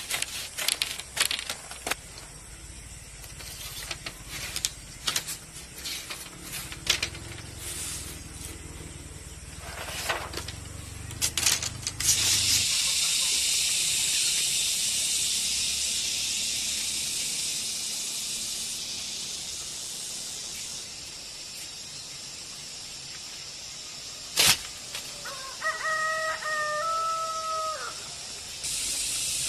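Split bamboo strips clacking and tapping on concrete as they are laid out, in irregular sharp clicks, then a steady high hiss in the background. A single sharp knock comes shortly before a rooster crows once, a call of about two and a half seconds near the end.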